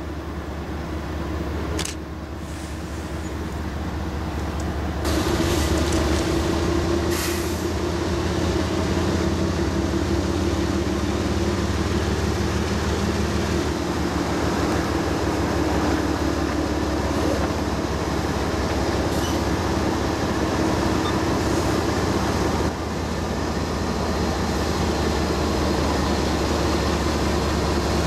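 A CSX freight train's lashed-up diesel locomotives approaching and passing close by, their engines running with a low rumble and a steady hum. The sound swells over the first five seconds or so as the units draw near, then holds steady as they pass.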